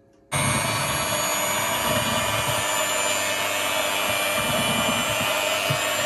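Cookworks electric hand mixer switched on about a third of a second in, then running steadily with its beaters whirring through eggs, butter and sugar in a bowl.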